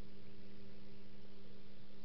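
A steady low hum with an even hiss over it, unchanging throughout, from aquarium equipment running.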